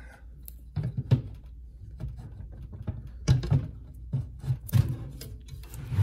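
A PC case's glass side panel being fitted back on, with a series of knocks and taps against the case.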